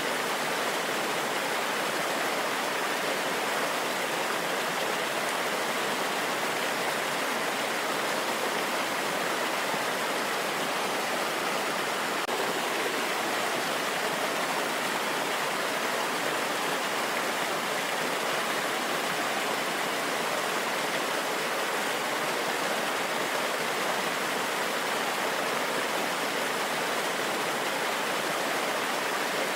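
Waterfall: falling water pouring and splashing in a steady, unbroken rush.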